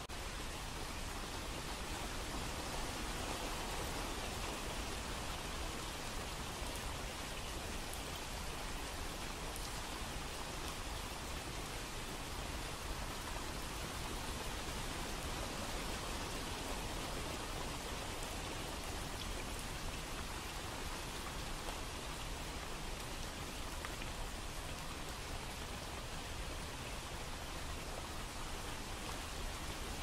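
Steady rain falling, an even hiss that neither rises nor falls.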